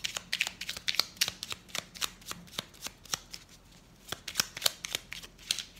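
A small deck of oracle cards being shuffled by hand: a rapid, uneven run of crisp card clicks.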